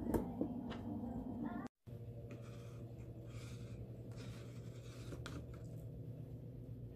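Faint rustling and a few light clicks over a low steady hum. Near the start, steady tones and sharper clicks cut out abruptly for a moment.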